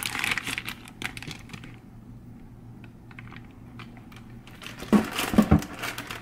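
Plastic bag crinkling and rustling as it is handled, with small clicks, for the first couple of seconds. About five seconds in comes a short cluster of loud knocks and clatter.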